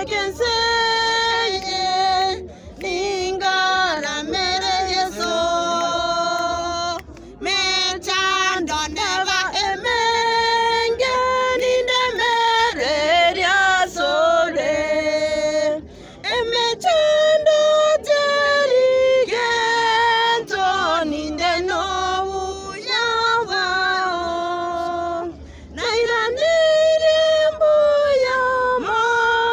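Mourners, mostly women's voices, singing a slow unaccompanied song in held phrases of a few seconds, with brief breaks between phrases.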